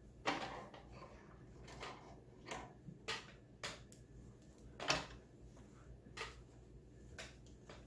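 Handling noise at the sewing machine: irregular light clicks, knocks and rustles as fabric and small tools are moved about, about eight in all. The loudest come just after the start and about five seconds in. The machine's motor is not running.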